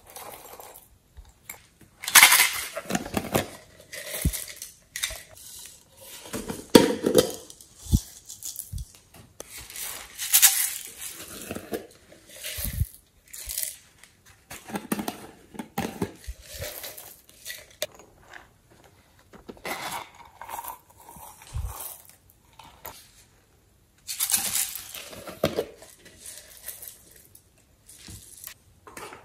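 Slime and coloured glue squeezed out of soft plastic squeeze containers into a glass dish of glitter and sequins: irregular squishing and spurting bursts with quiet gaps between squeezes, and a few sharp clicks and clinks.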